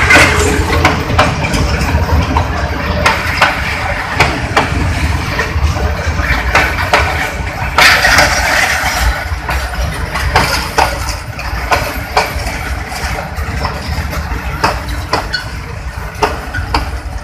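Bangladesh Railway intercity passenger coaches rolling past close by: a steady heavy rumble with frequent sharp clacks of steel wheels over rail joints. A louder clatter comes about eight seconds in, and the sound slowly gets quieter.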